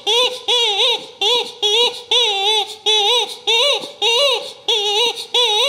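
Blue rubber chicken squeaky toy clucking over and over as a wire fox terrier chews it: about two squawks a second, each bending up and then down in pitch.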